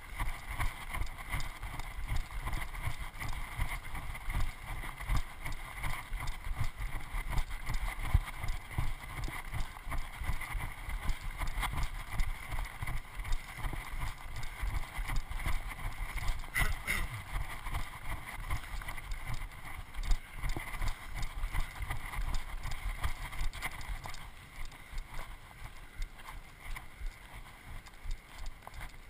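Wind buffeting an action camera's microphone, mixed with a runner's footfalls on a stony dirt trail, a little quieter over the last few seconds.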